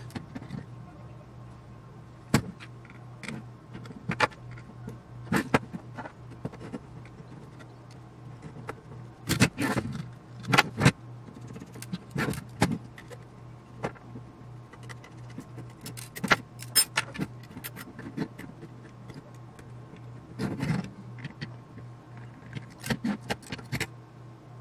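Irregular metallic clicks and knocks as a metal instrument chassis with its gears and small parts is handled and worked on with a screwdriver, heaviest in short clusters around the middle. A steady low hum runs underneath.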